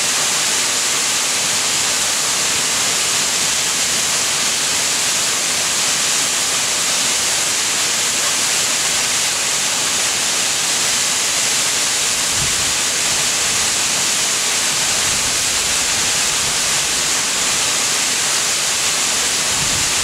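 Waterfall cascading over boulders: a loud, steady rush of falling water, with a couple of brief low rumbles, one about twelve seconds in and one near the end.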